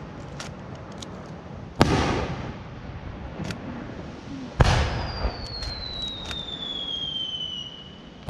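Aerial firework shells bursting: a loud boom about two seconds in and another about four and a half seconds in, each trailing off in a rumbling echo, with scattered sharp pops between. Over the second half a high whistle slowly falls in pitch, and a further boom hits at the very end.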